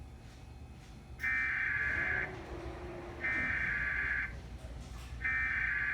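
Emergency Alert System SAME header: three bursts of screechy, warbling digital data tones, each about a second long with about a second between them. They encode the alert, here a tornado warning, ahead of the attention tone and voice message.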